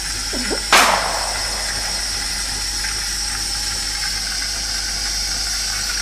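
Saeco automatic coffee machine venting steam from its top: a sudden loud burst less than a second in, then a steady hiss.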